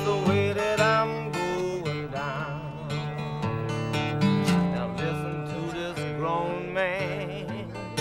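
Steel-string acoustic guitar played country-blues style, picked bass notes moving under the chords, in an instrumental break of the song. A higher melody line with a strong wavering vibrato comes in over it a couple of times.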